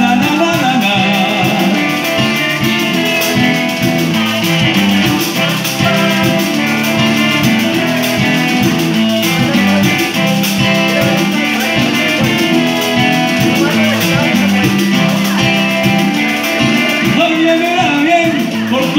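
Live acoustic Latin band playing an instrumental break: acoustic guitar with steady percussion beats.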